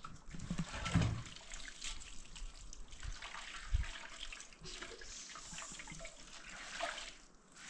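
Water trickling and splashing, with small clicks and two dull knocks, about a second in and near four seconds.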